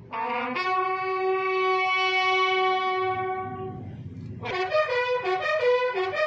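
Ceremonial bugle call. A short low note steps up to one long held note lasting about three seconds, then after a brief break a quick run of notes starts about four and a half seconds in.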